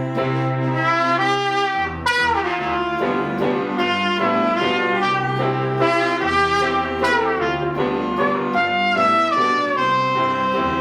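Instrumental music led by brass, with trumpet and saxophone playing a melody over a steady bass line.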